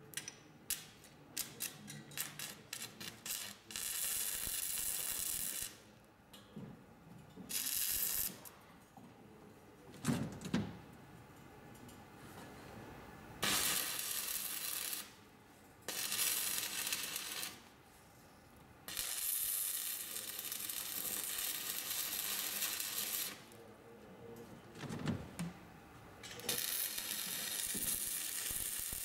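Electric arc welding on a metal frame: a run of quick clicks and light metal knocks in the first few seconds, then several bursts of steady arc crackle and sizzle, each one to four seconds long, broken by short pauses.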